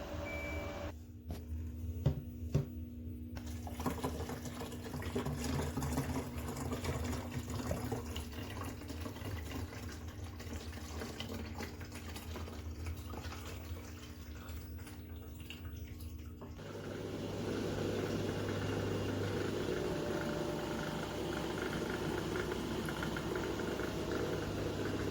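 Countertop mini dishwasher running, water splashing and filling inside it over a steady machine hum. Two sharp clicks come about two seconds in. About two-thirds of the way through, the sound changes to a louder, steadier low hum with more spray noise.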